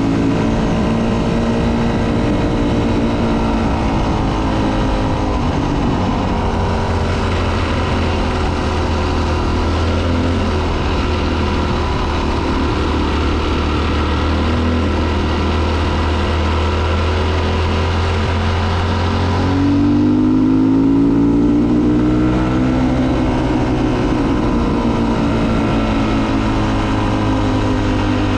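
Dirt bike's single-cylinder engine running under way on a gravel road, over a steady rush of noise. Its pitch drops about six seconds in as the rider eases off, holds lower, then climbs and gets a little louder about twenty seconds in as the bike accelerates, before settling again.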